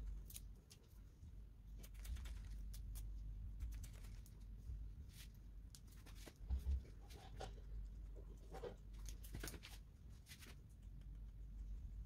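Hairdressing scissors snipping through hair in short, irregular snips close to the microphone, over a low steady hum. A dull bump about six and a half seconds in is the loudest moment.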